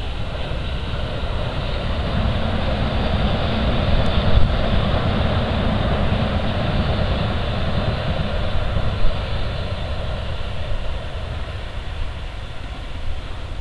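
Wind buffeting the microphone, a steady rushing rumble that swells a few seconds in and slowly eases off.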